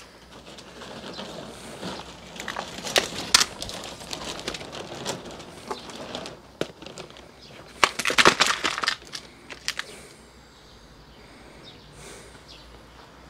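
Plastic plant pots being handled and shifted on a concrete ledge: rustling and light clatter, with louder bursts about three seconds in and again around eight seconds in, then quieter.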